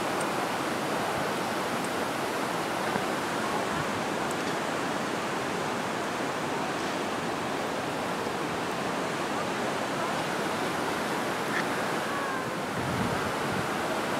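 Steady rush of water from a partly frozen waterfall.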